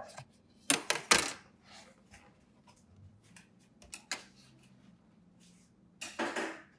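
Hard plastic pieces of a monitor sunshade hood clacking against a tabletop as they are handled and set down: a few sharp knocks in the first second or so, another about four seconds in, and a short rustle near the end.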